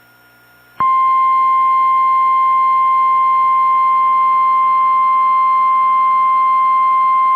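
Emergency alert warning tone: a single loud, unbroken beep a little above 1 kHz, the 1050 Hz warning alarm tone of NOAA Weather Radio. It starts abruptly about a second in and signals that an emergency warning is about to be read.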